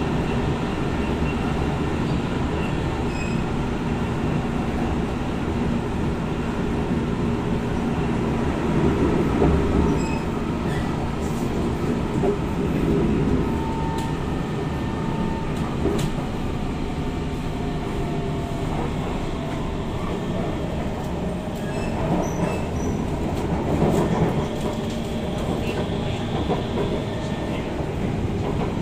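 Ride noise inside an SMRT C151 metro train car running along the line: a steady rumble of wheels and running gear on the rails. It swells briefly about nine seconds in and again near the end, with a few short high tones in between.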